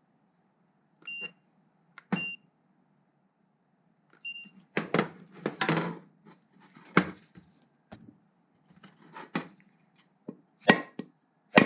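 Three short electronic beeps, then a soft deadblow hammer knocking at irregular intervals on a heated aluminium moped engine case to jar a stuck bearing out of its bore.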